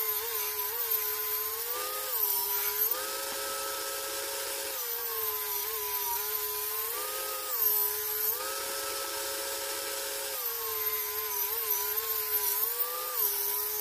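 An electric power tool's motor running steadily, its hum sliding up and down between two pitches every few seconds as the load on it changes.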